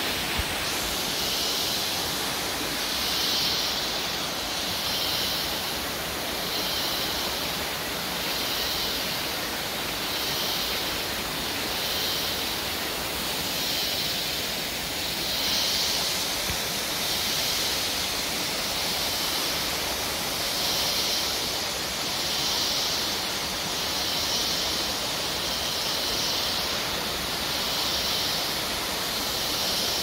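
A tall jungle waterfall, the El Chorro Macho, pouring down a rock face onto the stones below in a steady, unbroken rush of water. Over it a high hiss swells and fades about every second and a half.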